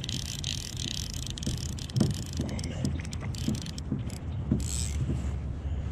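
Fly reel's click-and-pawl drag ticking in quick, irregular runs while a hooked rainbow trout is played, over a low steady hum.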